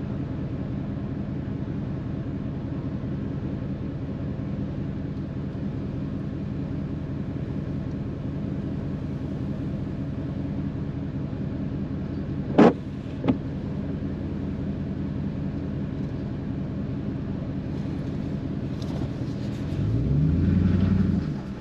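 Car engine idling steadily with a low hum, with two sharp clicks a little past halfway. Near the end the engine revs up, its pitch rising as the car pulls away.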